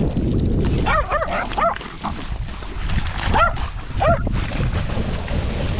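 A dog yipping and whining in short, high, arching cries: three quick ones about a second in, then two more in the middle, over a steady low rumbling noise.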